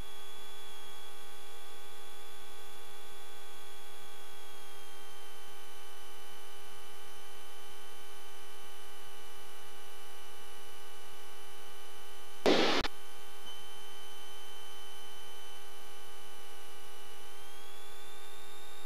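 Steady electrical hum and whine on a light aircraft's intercom and radio audio feed. The high whine dips slightly in pitch a few seconds in and rises again near the end. A short burst of noise comes about twelve and a half seconds in.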